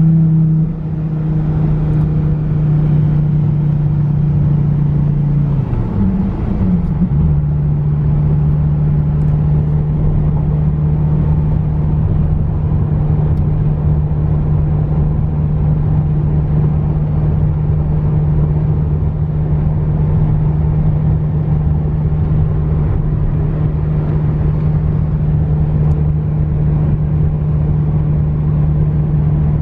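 2014 Dodge Viper GTS's 8.4-litre V10 running at a steady low engine speed, a deep even drone, with a brief wavering in pitch about six seconds in before it settles again.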